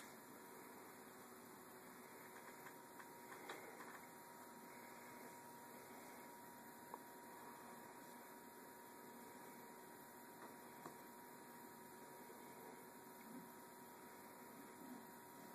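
Near silence: a steady low hiss with a faint electrical hum, and a few faint soft rustles and small ticks.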